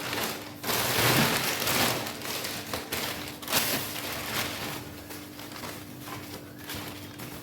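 Plastic packaging rustling and crinkling in uneven bursts as table-fan parts are unwrapped by hand, loudest about a second in.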